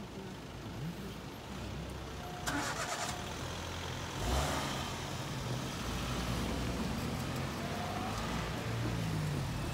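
Cars waiting at a level crossing start their engines and pull away as the barriers go up, their engines running low and steady after a louder surge about four seconds in. A brief rattling clatter comes about two and a half seconds in.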